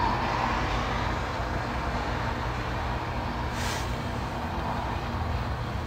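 Steady low rumble and hum of background noise, with a short breathy hiss about three and a half seconds in.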